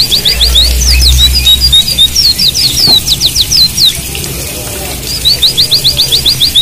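White-eyes (pleci) singing: fast, loud runs of short high chirping notes, about ten a second, alternating with slower sweeping whistles. This is the rapid 'tembakan' song used to set off other pleci. The same phrase starts over about five seconds in, as in a looped training recording.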